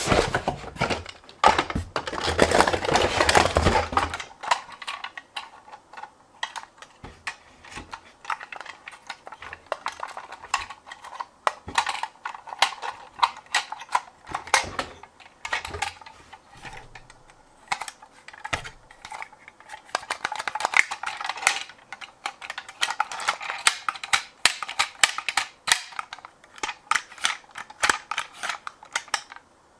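Small toy vehicles being handled: a loud, dense rattle for about the first four seconds, then many irregular sharp clicks and taps of hard plastic and metal parts.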